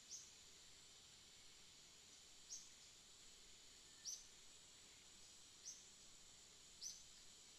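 Faint outdoor ambience: a steady high insect drone, with a short high chirp about every second and a half, five in all.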